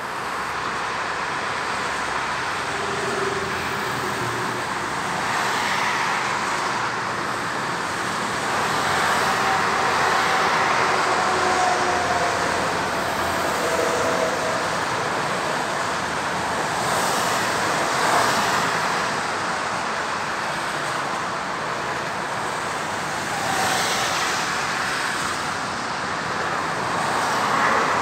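Steady rush of motorway traffic: cars and vans passing at speed on a multi-lane autobahn, with tyre and engine noise swelling each time a vehicle goes by, every few seconds.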